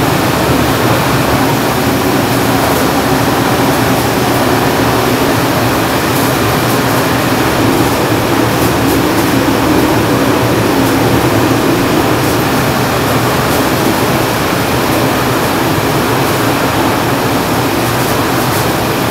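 Steady loud machine noise: an even rush of air with a low hum underneath.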